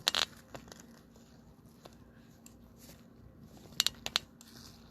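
Plastic wrap crinkling and tearing as a trading-card box is opened: sharp crackles at the start and again about four seconds in, with quieter handling in between.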